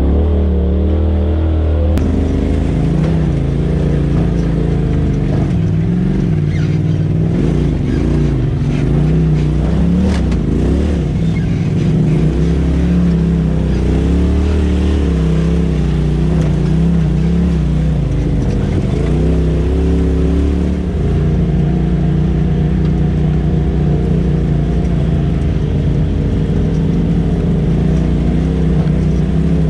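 Side-by-side UTV engine, heard from the cab while the machine is driven along a rough trail. Its pitch rises and falls with the throttle through the first half, then holds steadier.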